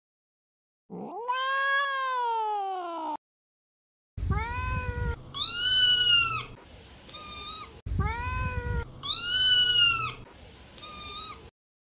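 A domestic cat meowing: one long meow about a second in that rises and then falls in pitch. From about four seconds in comes a run of three shorter meows, the last one higher and shorter, and the same run is then heard a second time over a low background rumble.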